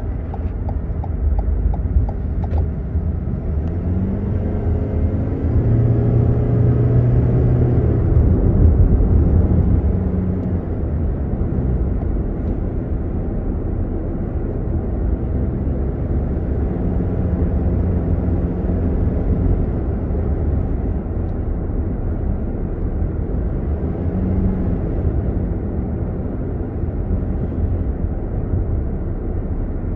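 Car engine and road rumble heard from inside the cabin while driving. The engine note climbs as the car picks up speed over the first several seconds, is loudest about eight to nine seconds in, then settles to a steady cruising drone.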